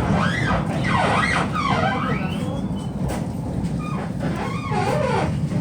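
Tram running with a steady low rumble, over which high squealing tones glide up and down several times.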